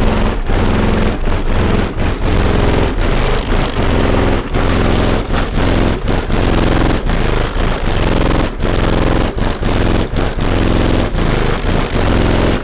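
Extremely loud bass from a car audio system with 24 twelve-inch subwoofers, playing at full tilt. The recording is overloaded and distorted, with the sound cutting in and out in rapid dips.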